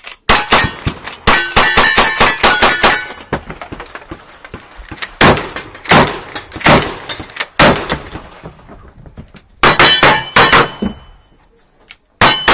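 Rapid gunfire on steel targets: about ten quick lever-action rifle shots, each followed by the ringing clang of a struck steel plate. Then four shotgun shots about a second apart, and near the end quick strings of single-action revolver shots ringing on steel.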